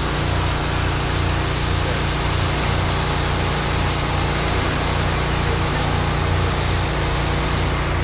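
Fire hose nozzle spraying a steady stream of water onto the hot, steaming engine compartment of a burned skid steer: a continuous hiss. Under it runs the steady drone of an engine at constant speed.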